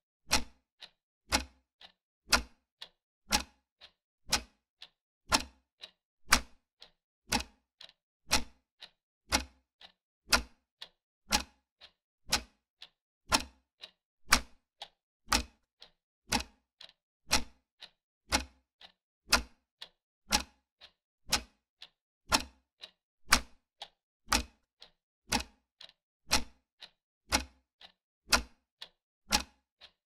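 Clock-tick sound effect keeping time with a countdown: a loud tick once a second, with a softer tock halfway between each pair of ticks.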